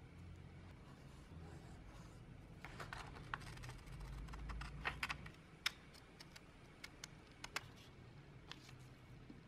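Scissors cutting a sheet of paper: a run of faint snips and paper rustle, followed by a few scattered sharp clicks.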